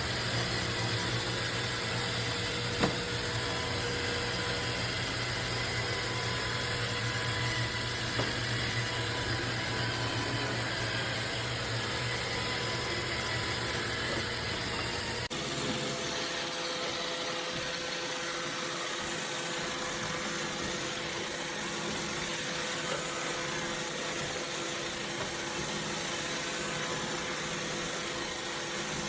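iRobot Roomba 692 robot vacuum running: a steady motor whir with a thin whine over it, and one knock about three seconds in. About halfway through, the low hum drops out and the running sound shifts.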